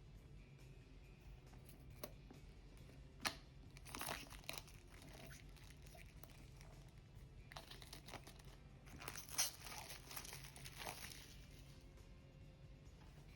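Packaging being crinkled and torn open in two short spells of rustling, with a sharp click about three seconds in.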